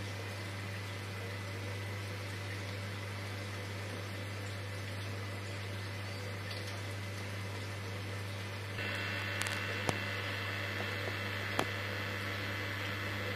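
Aquarium equipment running: a steady low hum under an even, water-like hiss from the tank's pump and circulating water. About two-thirds of the way through, the sound shifts to a brighter hiss with a few sharp clicks.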